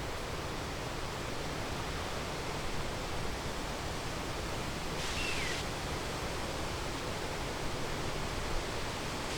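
Steady rushing outdoor background noise with no distinct source. About five seconds in there is one short whistle that falls in pitch.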